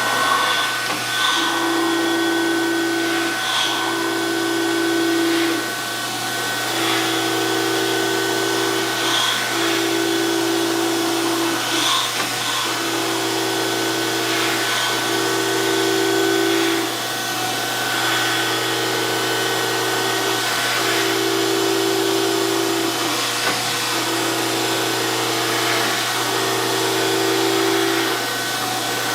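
DoAll 14-inch surface grinder running, wheel spinning with a steady hum and whine, while the powered table traverses back and forth: a tone from the table drive comes in runs of about two seconds, breaking briefly at each reversal.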